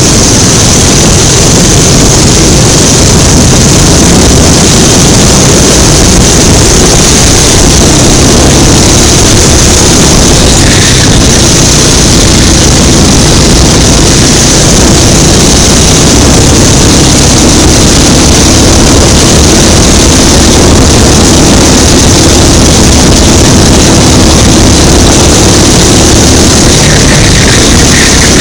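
Go-kart engine running hard, heard from a camera mounted on the kart. It is loud and steady throughout, with only slight shifts in pitch.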